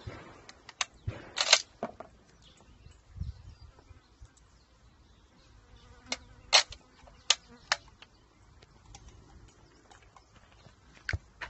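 Metallic clicks and clacks of a .303 bolt-action rifle's bolt being worked as it is loaded: a quick cluster about a second in, a dull thump around three seconds, a run of four sharp clacks between six and eight seconds, and a single click near the end.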